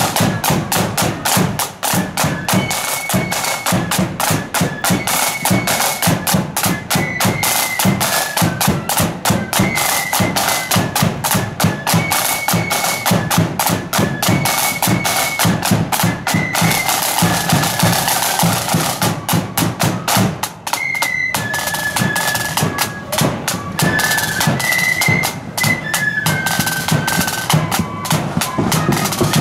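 Marching flute band playing: a high flute melody over rapid, steady side-drum beats and rolls.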